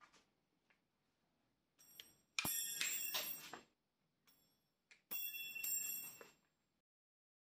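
Two sharp metallic snaps from a Parkside PSTDA 20-Li B3 cordless jigsaw's spring-loaded tool-free blade clamp, each followed by about a second of high ringing from the steel blade. The clamp spring is very powerful, stiff enough to snap the blade hard.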